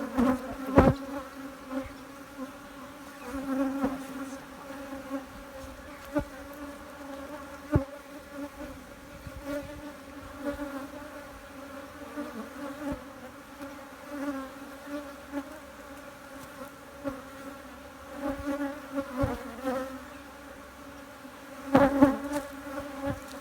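Honeybees buzzing around an opened hive, a steady hum that swells and fades. A few sharp knocks come through it about a second in, twice around six to eight seconds, and near the end.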